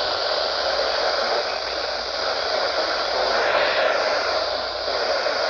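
Steady hiss of radio static from a weather radio receiver.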